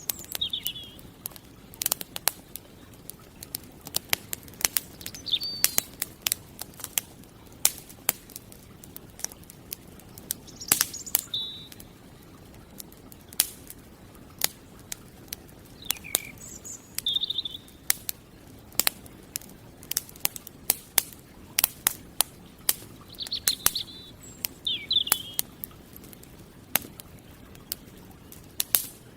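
Campfire crackling, with frequent sharp pops and snaps of burning wood. Small birds chirp now and then in short calls, some dropping in pitch.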